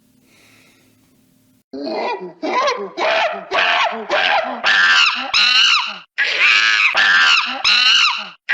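Loud, high-pitched screaming in a rapid run of short cries that bend in pitch, starting suddenly about two seconds in after a faint hum.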